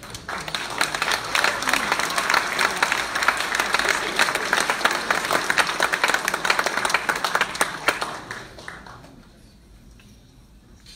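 Large audience applauding, many hands clapping densely; the applause swells from the start and dies away about nine seconds in.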